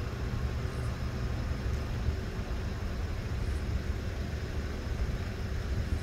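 A car engine idling, a steady low rumble with no change.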